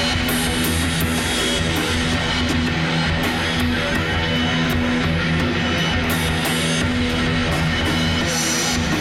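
Rock band jamming: electric guitar holding sustained chords over a drum kit, with frequent drum and cymbal hits.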